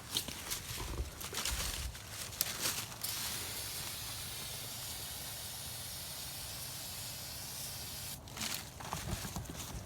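Aerosol can of brake cleaner spraying in one long steady hiss that starts about three seconds in and cuts off about eight seconds in, with crackling before and after.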